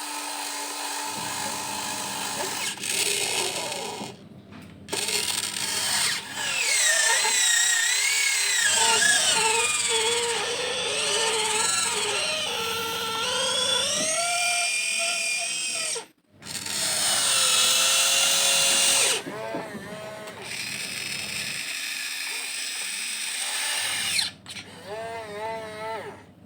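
Huina 1592 RC excavator's electric motors and gears whining as the machine works, the pitch wavering up and down with load. The whine cuts out briefly a few times between movements.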